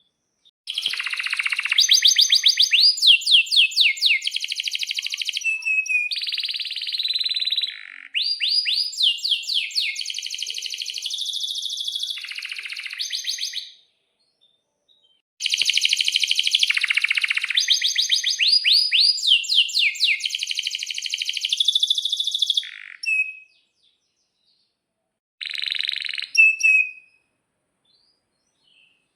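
Male domestic canary singing long phrases of rapid trills, rolls and rising sweeps: two long bouts of roughly thirteen and eight seconds with a short pause between them, then a brief phrase near the end.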